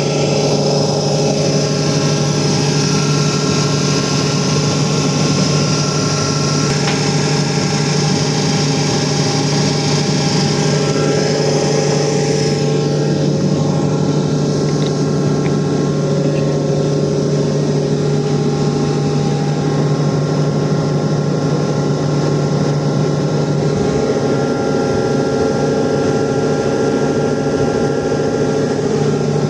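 7.5 hp air compressor running steadily with a constant low hum. A high hiss over it stops about halfway through.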